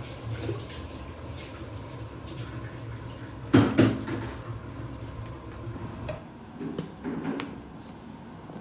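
Pots, dishes and utensils clinking during cooking, with two loud sharp clinks a little past the middle and a few softer ones later, over a steady low hum.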